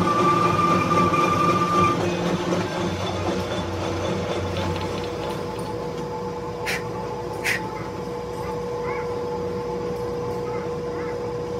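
Metal lathe running with a gear held in its four-jaw chuck, a thin high whine over the machine noise for the first two seconds. The noise then drops a little as the chuck slows, leaving a steady hum, with two sharp metallic clicks about seven seconds in.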